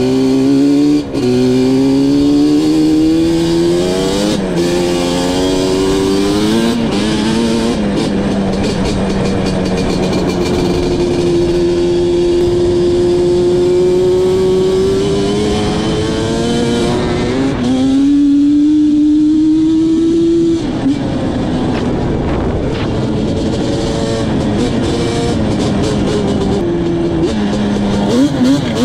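Yamaha Banshee 350 quad's two-stroke twin engine run hard through the gears: the pitch climbs and drops back at each shift, is then held high for several seconds, and ends in quick throttle blips. It is being ridden hard to clear out carbon buildup.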